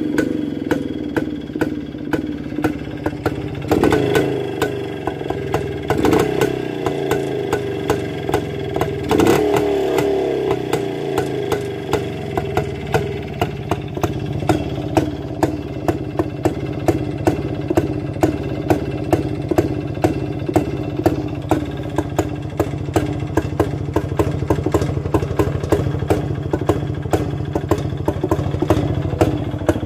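Rajdoot 175's single-cylinder two-stroke engine idling, with a louder beat about twice a second in its running. The engine note swells briefly three times in the first ten seconds, then settles to a steady idle.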